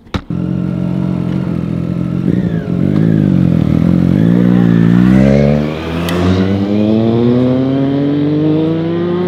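Two sport motorcycles' engines revving and pulling away, the pitch wavering up and down and then rising steadily as they accelerate.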